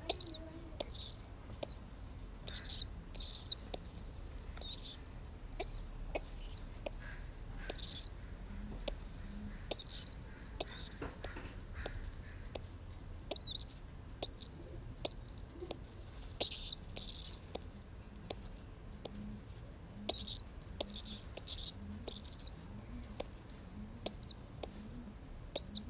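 Young pigeon squab peeping: a string of short, high, wavering squeaks, one or two a second.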